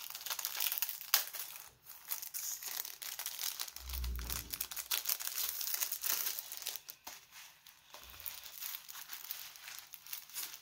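Packaging of a rolled diamond painting canvas crinkling and rustling as it is handled and unwrapped by hand, with a few sharp clicks and a dull low thump about four seconds in.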